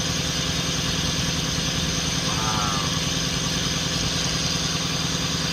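A 1991 Lexus LS400's 4.0-litre V8 idling steadily while it warms up after a timing belt and front seal replacement.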